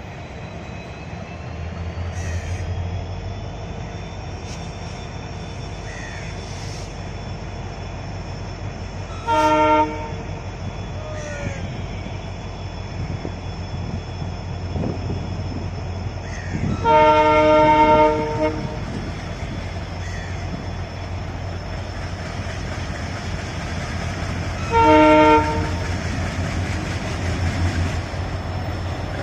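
Diesel-hauled express train arriving, with a steady low engine rumble under the rail noise. Its horn blows three times: a short blast about a third of the way in, a long blast just past the middle, and another short blast near the end.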